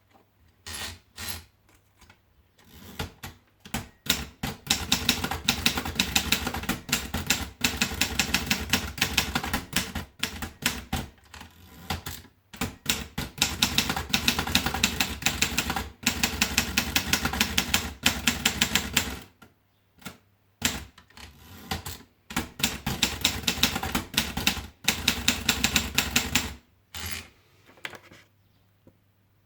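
Rheinmetall KsT manual portable typewriter being typed on: quick runs of key strikes, several a second, broken by short pauses, with a longer break about two-thirds of the way through.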